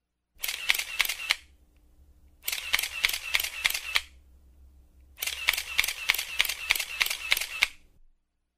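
Three bursts of rapid, sharp clicks over a hiss, each about one to three seconds long, with short quiet gaps between them.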